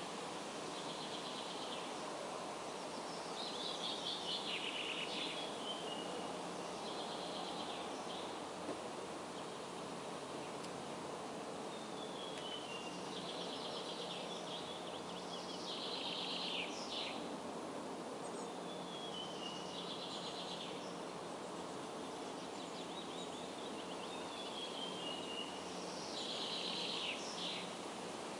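A songbird repeats a short song every few seconds: a quick falling run of notes, then a rapid trill, over a steady outdoor background hiss.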